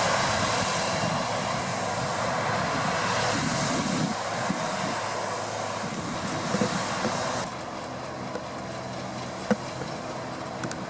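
Deutz-Fahr 6060 combine harvester running while harvesting wheat: a steady drone of engine and threshing machinery with a dense hiss. It suddenly gets quieter about three-quarters of the way through.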